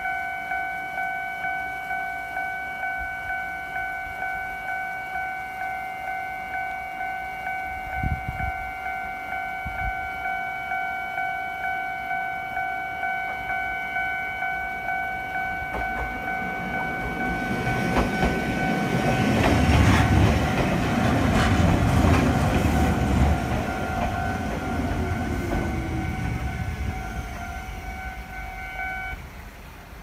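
Japanese level crossing alarm ringing in steady repeating electronic dings while a Nagano Electric Railway train passes, its rumble and wheel rattle swelling about two-thirds of the way in and fading away. The crossing alarm stops just before the end.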